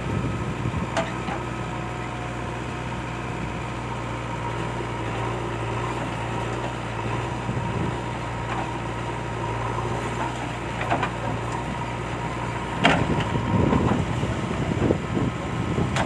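JCB 3DX Xpert backhoe loader's diesel engine running steadily as the backhoe arm digs and dumps soil. A few brief knocks, then near the end a louder clatter and rough scraping as the bucket works the earth.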